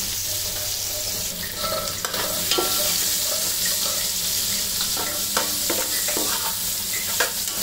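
Chopped onion and spring onion sizzling in hot oil in a pan while a spatula stirs them, with repeated short scrapes and knocks of the spatula against the pan.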